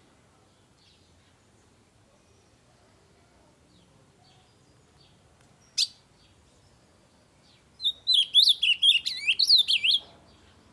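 Ultramarine grosbeak (azulão) singing: faint short chips, one sharp call about six seconds in, then near the end a loud, fast warbled song phrase of about two seconds.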